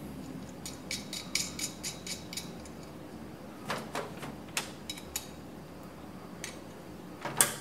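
Light metallic clicks and clinks of a bolt, nut and small open-end wrench being handled against a metal burner mounting flange: a quick run of ticks in the first couple of seconds, then scattered single clicks.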